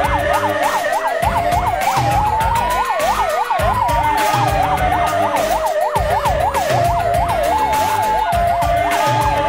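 Police sirens sounding: one wails slowly up and down while another yelps rapidly, changing to a two-tone hi-lo near the end, over background music with a steady beat.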